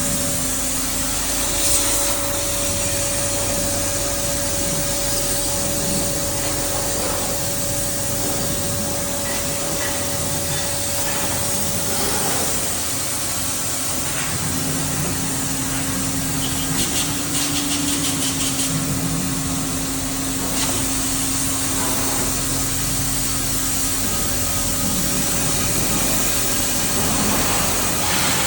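Calpe M 1300 MH woodworking copy lathe running, with a steady machine hum under the noise of the cutting tools working the wood.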